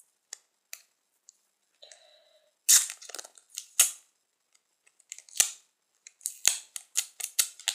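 Thin plastic foil label being peeled and crinkled off a small plastic bottle by hand: a series of sharp crackles and clicks, loudest a little under three and four seconds in, with a quick run of them near the end.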